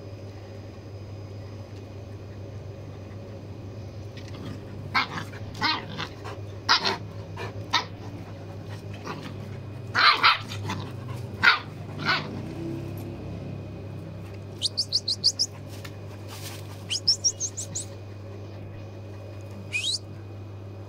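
Puppies yelping and barking in short, high calls while play-fighting with an adult dog, most of them bunched between about five and twelve seconds in. Later come two quick runs of very high chirps and a single rising squeal, over a steady low hum.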